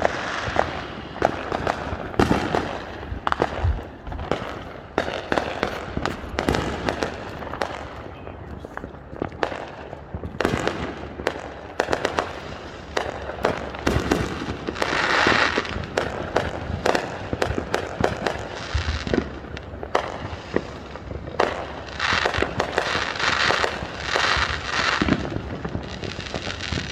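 Fireworks going off in quick succession: many sharp bangs and pops, with stretches of crackling hiss about halfway through and again near the end.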